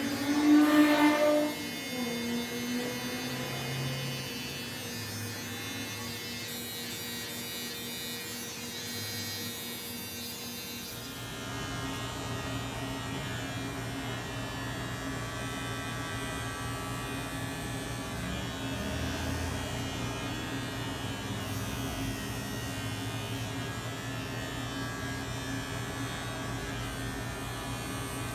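Electric hair clippers buzzing steadily while cutting short hair; about eleven seconds in the hum becomes fuller and deeper and then holds steady. A brief loud voice-like sound comes about a second in.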